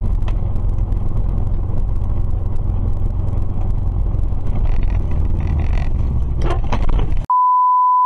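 Steady low road and engine rumble inside a moving car, picked up by a dashcam. Near the end it cuts off and a steady one-second beep tone takes its place, a censor bleep.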